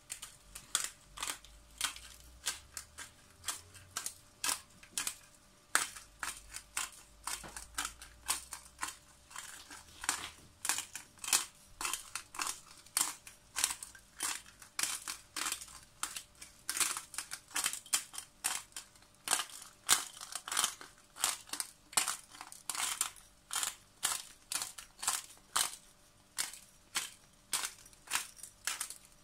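Black pepper grinder being twisted by hand, crushing Tellicherry black peppercorns in a quick, even series of crunching clicks, a few a second, that stops near the end.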